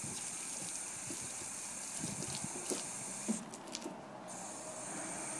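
Garden hose spraying water with a steady hiss, with scattered splashes and clicks as Great Dane puppies bite at the stream. The spray cuts out for under a second about three and a half seconds in, then resumes.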